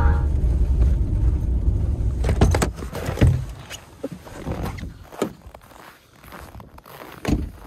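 Pickup truck's low rumble heard from inside the cabin, fading out after about two or three seconds, then a couple of clunks as the driver's door opens and footsteps in snow.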